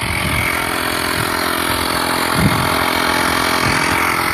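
12-volt portable tire air compressor running steadily as it pumps air into a car tire, a constant mechanical drone with a high whine over it.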